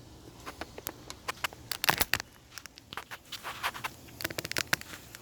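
Irregular clicks, taps and rattles of hands handling small parts and tools on the saw, with the loudest cluster about two seconds in and another near the end.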